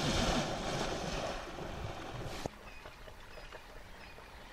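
A hippo charging through shallow water, a heavy rushing splash that stops suddenly about halfway through. After it, quiet with a few faint chirps.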